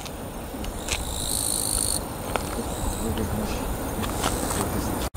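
Insects buzzing with a high, steady tone that comes in a burst of about a second, starting about a second in, with fainter calls later, over a low rumble that slowly grows louder.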